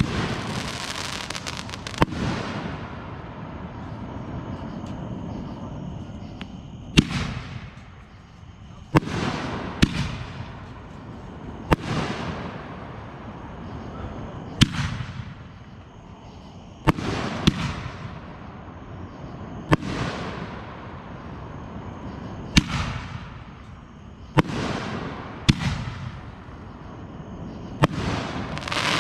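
Aerial fireworks bursting overhead: sharp bangs every one to three seconds, many followed by a fading hiss.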